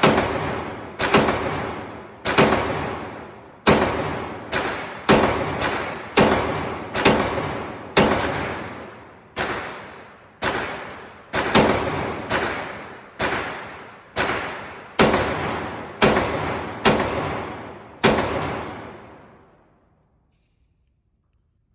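Glock 19 9mm pistol fired about twenty times at a steady pace, roughly one shot a second, each shot ringing out with a long echo. The string ends with a last shot near the end.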